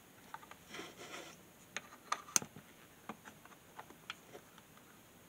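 Faint handling sounds from a plastic plug-in power meter: a scattering of small clicks from its buttons and plug, with a brief rustling scrape about a second in and a sharper click about two and a half seconds in.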